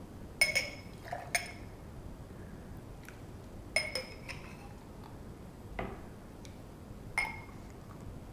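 A small metal ladle clinking against the rim of a drinking glass as juice is ladled into it: several sharp clinks a second or more apart, each with a brief glassy ring.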